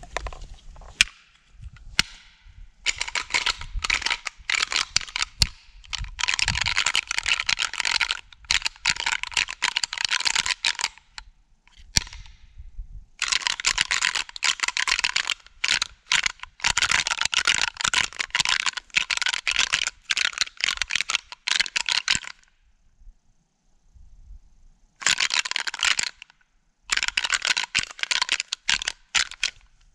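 Deer rattling call worked hard in long runs of rapid clacking and grinding, broken by a few short pauses, imitating two bucks fighting to draw in a buck.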